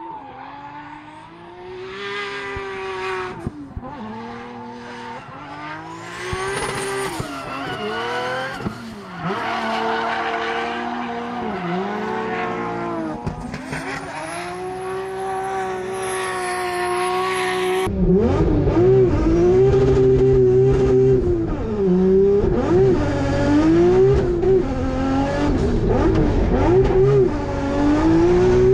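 Nissan Skyline drift car's engine revving up and down repeatedly through drifts, with tyre squeal. About halfway through, the sound switches to inside the cockpit, where it is louder and deeper.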